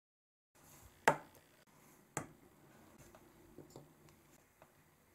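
3D-printed plastic case parts being set down on a work mat by hand: a sharp clack about a second in, another about a second later, then several lighter taps.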